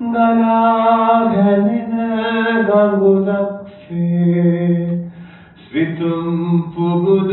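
A man chanting into a microphone in long, drawn-out notes, each held on one pitch before stepping to the next, with two short pauses for breath.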